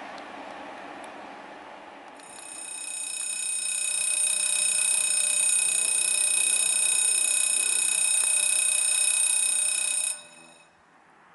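A passing train's running noise fades away. Then an electric warning bell swells in and rings steadily for about eight seconds before stopping abruptly: a level-crossing bell signalling an approaching train.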